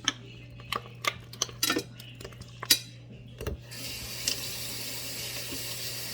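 A quick run of sharp clicks and light knocks from handling things at a sink, then a tap is turned on about three and a half seconds in and water runs steadily to rinse a soaped silicone pop-it fidget.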